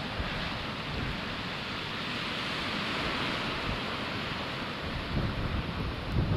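Steady wash of sea surf with wind buffeting the microphone, the low gusts growing heavier near the end.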